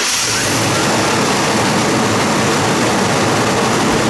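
1997 Ford F-150 engine idling steadily, just after being started.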